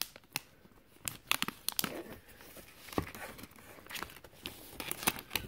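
Shiny plastic protective wrap crinkling and tearing as it is pulled off a new device by hand: a run of irregular crackles, with a sharper snap about three seconds in.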